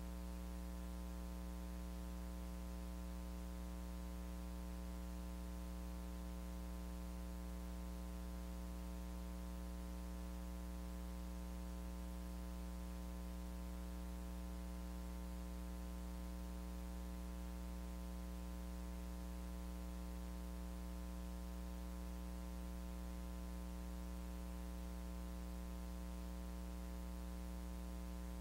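Steady electrical mains hum, a low drone with a buzzy stack of overtones, over a constant hiss; no other sound comes through.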